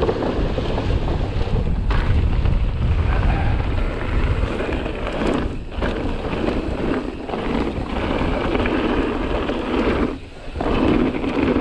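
Wind buffeting the camera microphone over the rumble and rattle of mountain bike tyres on a rough trail at speed. The noise dips briefly a couple of times, most clearly near the end.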